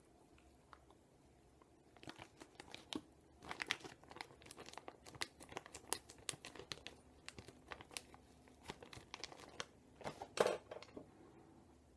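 Faint crinkling of a clear plastic zip-top pouch of loose-leaf chewing tobacco being handled. The run of crackles starts about two seconds in and is loudest near the end.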